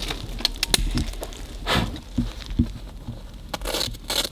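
Footsteps and rustling through dry forest litter: irregular crackles with a few soft thumps.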